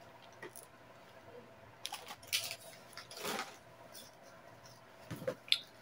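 Faint handling of household items: scattered light clicks and a few short rustles, the loudest about three seconds in.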